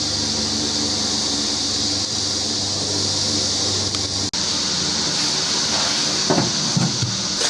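A steady machine-like hum and hiss, as from a fan or blower running, with a brief break about four seconds in.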